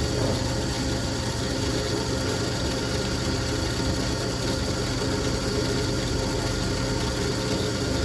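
Floor drill press running steadily, its hole saw cutting into a steel plate clamped in the vise.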